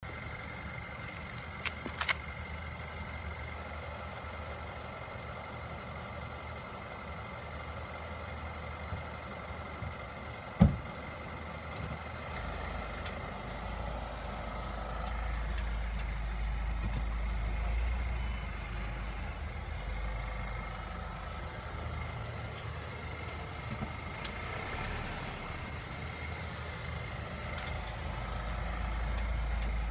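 Steady low rumble of a running vehicle, with a few scattered sharp clicks near the start and one loud knock about ten seconds in.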